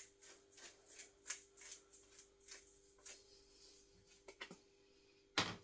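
Hand pepper grinder cracking peppercorns, a dry rasping grind about three or four strokes a second for the first three seconds. A couple of small clicks and one louder knock follow near the end.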